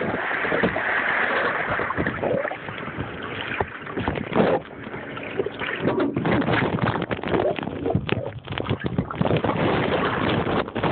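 Underwater in a swimming pool just after a cannonball: churning water and bubbles heard muffled through the submerged camera, with many small knocks and clicks throughout.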